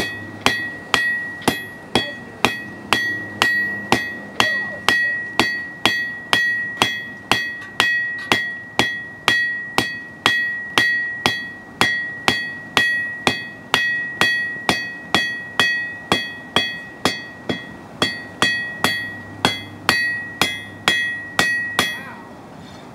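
Hand hammer striking hot steel bar stock on an anvil at a steady rhythm of about two blows a second, the anvil ringing at one high pitch through the blows, which stop about a second before the end. The bar is being forged from round down to a square point.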